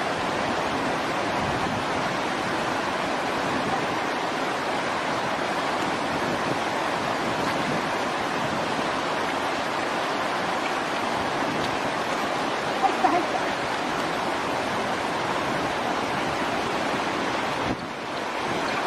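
Steady rushing of running water, even throughout, with a brief high squeak about thirteen seconds in.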